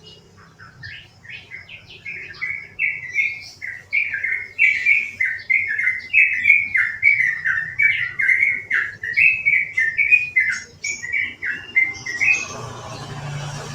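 Yellow-vented bulbul (trucukan) singing a long, rapid chattering run of repeated notes. It starts with scattered softer notes, builds to a loud steady string of about two to three notes a second, and stops near the end. A short rustling noise follows.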